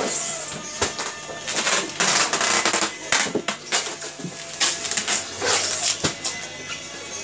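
Handling noise from packing work: clattering of plastic tubs and styrofoam boxes, with several short hissing rasps and clicks, over faint background music.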